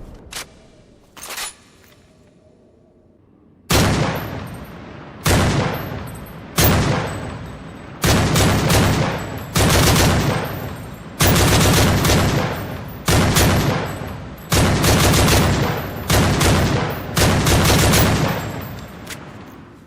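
Gunshot sound effects: after two brief sharp sounds and a quiet pause, about a dozen loud gunshots and short automatic bursts follow one another every second or so, each ringing out for about a second.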